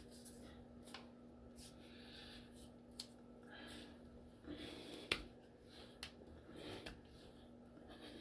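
A man breathing in and out in regular puffs, about one a second, while doing push-ups, with a few faint clicks or taps.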